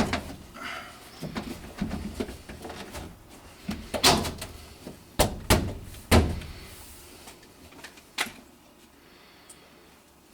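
A series of sharp metallic knocks and clanks, the loudest about four to six seconds in and one more near eight seconds, with quieter handling noise between: hard parts of the equipment being handled.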